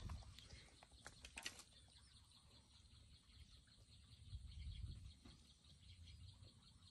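Faint outdoor ambience of small birds and insects chirping, with a few soft clicks about a second in and a low rumble swelling around four to five seconds.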